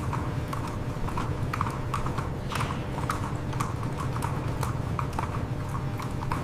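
Hooves of several American Quarter Horses clopping as they walk, many irregular strikes over a steady low rumble.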